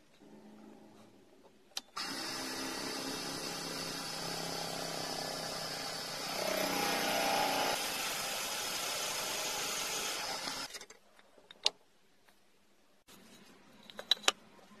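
Electric drill running for about nine seconds, its twist bit boring into a block of stabilized wood; partway through the sound gets louder and lower as the bit bites in, then the motor stops. A few light clicks follow near the end.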